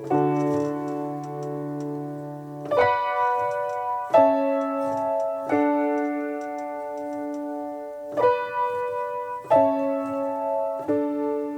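Background music: slow piano chords, each held for one to three seconds before the next is struck.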